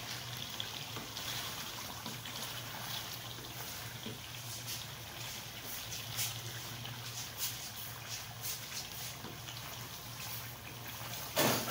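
Chicken cooking in a thick, wet gravy in a wok over a low gas flame: a soft simmering sizzle with scattered small pops, over a steady low hum. A wooden spatula stirs and scrapes the pan now and then, with one louder scrape near the end.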